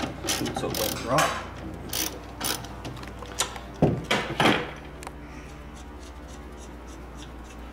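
Socket ratchet clicking, with metal knocks from the tool and socket, as the 14 mm strut top nut is worked loose; a few louder knocks about four seconds in, then the clicking stops.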